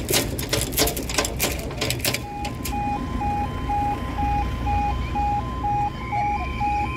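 A run of rapid sharp clicks, then about two seconds in a level crossing's warning alarm starts: an electronic two-tone yodel alternating steadily between a lower and a higher note.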